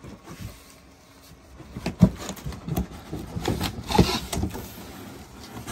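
Irregular knocks and clatter from handling a heavy battery enclosure during installation, with two sharp knocks about two and four seconds in.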